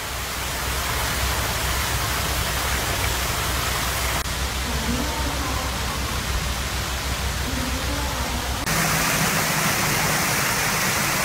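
Steady rushing hiss of water from the garden's mist sprayers and small stream, with a low rumble under the first part. The sound changes abruptly twice, about four and about nine seconds in.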